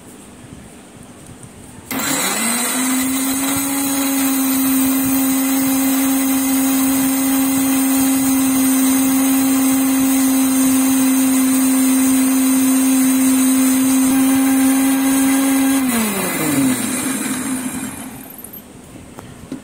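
Indian mixer grinder (mixie) switched on about two seconds in, its motor running steadily at high speed while grinding onions, ginger and garlic into a paste. Near the end it is switched off and winds down with a falling pitch.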